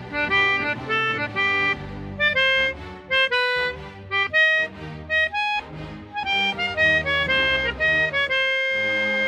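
Sampled melodica from notation-software playback, playing a lively melody of short, detached notes that ends on a long held note near the end.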